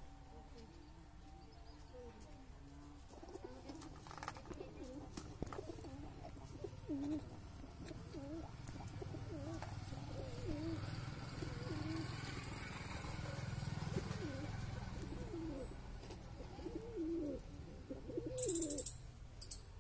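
Domestic pigeons cooing over and over, a run of low rolling coos that grows busier about halfway through. A brief scuffing noise comes near the end.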